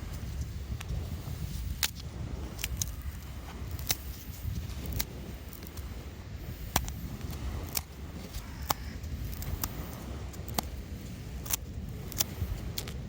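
Wood fire crackling: sharp pops at irregular intervals, about one a second, over a low steady rumble.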